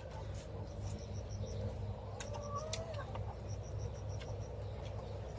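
Hens calling softly, with one drawn-out call that rises and falls, over a rapid, steady insect chirping and a low hum.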